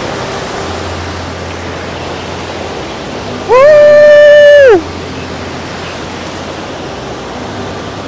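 Small waterfall rushing loudly and steadily as water pours over a dam-like weir. About three and a half seconds in, a single loud high held call of about a second rises in and falls away over the rushing water.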